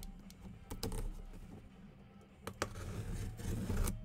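Light clicks and taps of a sealed box and its packaging being handled, a few sharper ones spaced irregularly, over a steady low hum.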